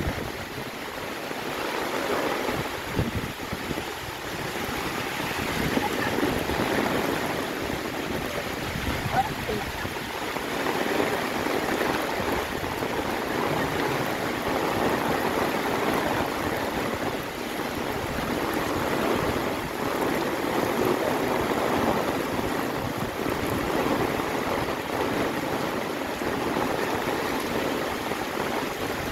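Heavy rain falling steadily on trees and foliage: a dense, even hiss that swells and eases a little.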